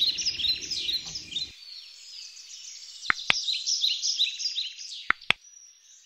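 Small songbirds chirping continuously in a quick, overlapping chorus, with two pairs of sharp clicks, about three and about five seconds in.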